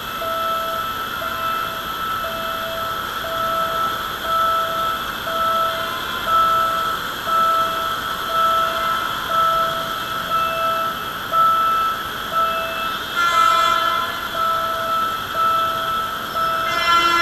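An electronic warning beeper sounds steadily about once a second over the noise of idling traffic. A horn blasts briefly about 13 seconds in and again near the end.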